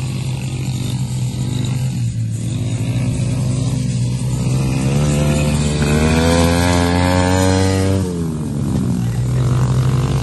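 Dirt bike engine running. Its pitch climbs as the rider revs it up past the middle, then drops back sharply about eight seconds in and runs steady again.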